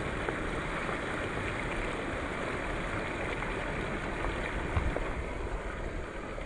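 Flash-flood water rushing steadily over a wadi bed, a constant even rush of churning, foaming muddy water. Light wind buffeting on the microphone comes in near the end.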